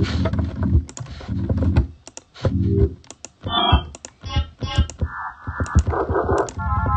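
Computer keys clicking as short synthesizer notes play back. First come low bass notes, then from about three and a half seconds in, higher, brighter synth tones, as different synth sounds are auditioned one after another.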